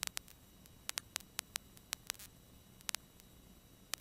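Near silence on the aircraft's radio and intercom audio feed between transmissions, broken by about a dozen faint, irregular static clicks and crackles.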